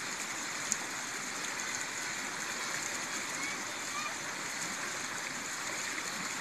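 Steady rushing of a shallow mountain river flowing over stones, with one faint click about a second in.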